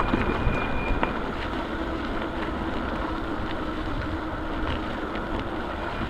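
Steady rumble of motor traffic, with an engine drone holding steady through the middle seconds.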